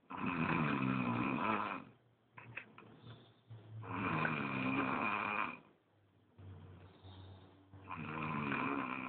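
A sleeping man snoring heavily: three loud snores about four seconds apart, with quieter breaths between them.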